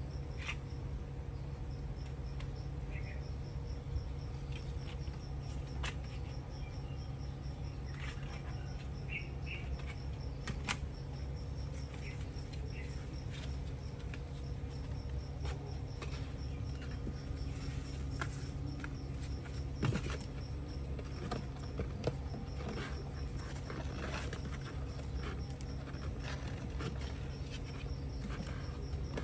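Steady, evenly pulsing high insect chirping over a low background rumble, with scattered light taps.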